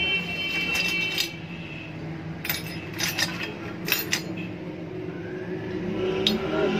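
Metal parts clinking and tapping as they are handled on a metal workbench: a few sharp clinks in the first second, a cluster a little later and one more near the end, over a steady low hum.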